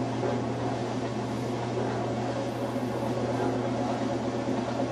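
Whirlpool top-load washing machine running with a steady motor hum and an even mechanical noise, no knocking or banging: a test run after its skid plate has been reinstalled.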